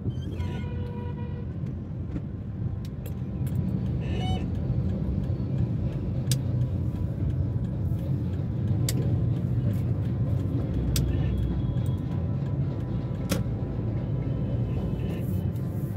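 Busy city street traffic heard from a moving vehicle: a steady low rumble of engines and tyres, with scattered sharp clicks and a few short pitched sounds such as horns.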